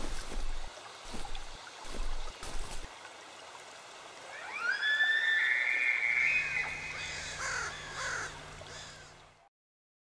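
Bull elk bugling: a call that rises steeply about four and a half seconds in to a high whistle with overtones, held for a few seconds, then trails off.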